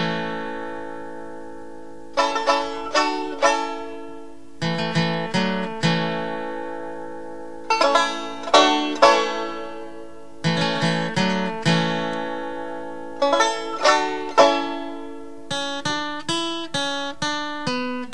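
Music played on a plucked string instrument: short phrases of a few quickly picked notes, each left to ring out for a second or two. From about three-quarters of the way through, it changes to a run of evenly spaced single notes.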